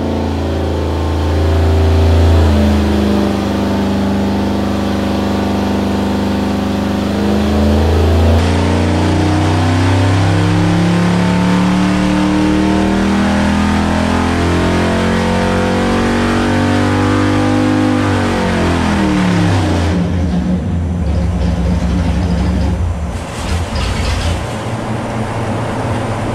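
327 cubic-inch Chevrolet small-block V8, breathing through stock exhaust manifolds, running hard under load on an engine dynamometer during a full-throttle pull. Its speed sweeps up toward about 5,500 rpm, then falls off about three-quarters of the way through and settles at a lower, steadier speed.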